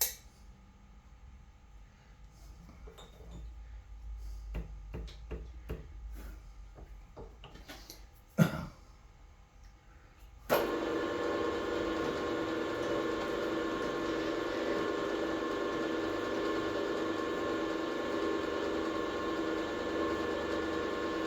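Light clicks and knocks of metal parts and tools being handled, with one sharp knock, then a lathe switched on about ten seconds in and running steadily with a motor and gear hum, ready to cut a groove.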